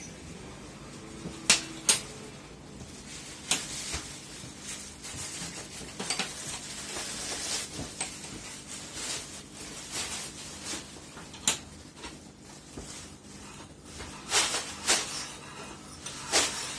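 Metal teaspoon stirring in a stainless steel saucepan, scraping round the bottom with a few sharp clinks against the sides, several of them near the end, as alum powder is dissolved into hot water.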